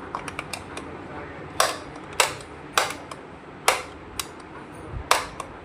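Sharp knocks and clicks from parts and tools being handled while a fan motor is swapped: a few light clicks at first, then about five loud knocks at uneven intervals, roughly half a second to a second apart.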